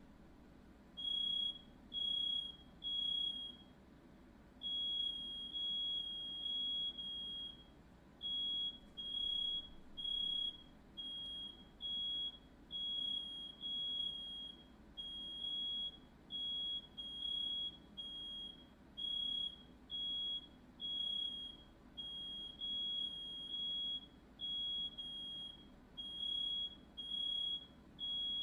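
Smoke alarm sounding: a single high-pitched beep repeating roughly once a second, with a brief pause about three seconds in.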